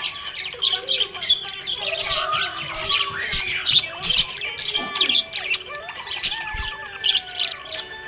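A group of small pet parrots chirping and squawking, with many short, rapid calls overlapping without a break.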